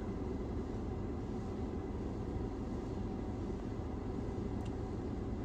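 Steady low rumble with a faint hiss, heard inside a car's cabin in an automatic car wash bay: the wash machinery running during a wax pass, under the idling car.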